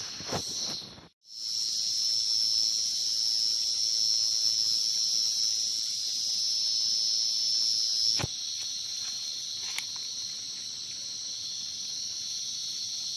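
Field crickets calling in a steady, high-pitched chorus. The sound cuts out briefly about a second in. A sharp click comes a little after the middle, and after it the chorus is quieter.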